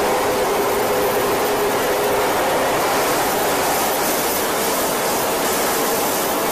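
Jet aircraft in flight heard from on board: a steady, even rush of engine and airflow noise.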